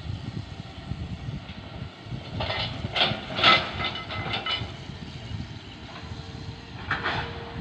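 Hitachi ZX200 excavator's diesel engine running with a low rumble, with a cluster of metallic clanks and squeals about two and a half seconds in and another short one near the end.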